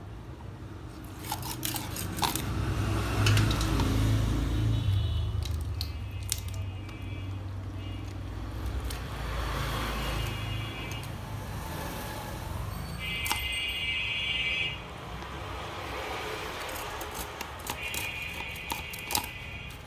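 Wet scraping and sharp clicks of hilsa fish being cut and cleaned against an upright boti blade. A low rumble runs under it, loudest in the first half, and short bursts of music play in the background.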